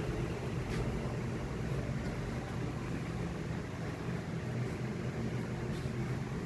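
Steady hum and rushing air of grow-room fans running, with a low drone underneath.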